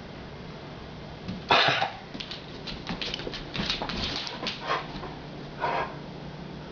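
A dog coughing: one loud cough about a second and a half in, followed by a rapid string of short hacking coughs and another cough about a second before the end. The cough is persistent.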